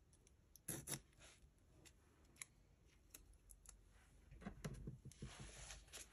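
Faint sounds of washi tape being trimmed along a clear ruler on a planner page: two short, sharp sounds about a second in, then a few light clicks and, near the end, a rustle of tape and paper as the ruler is moved.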